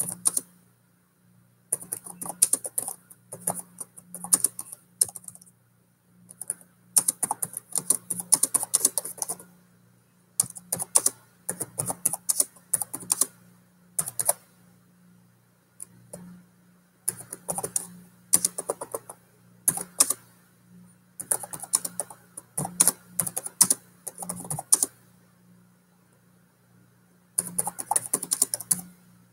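Typing on a computer keyboard: runs of quick keystrokes, each a second or two long, with short pauses between them.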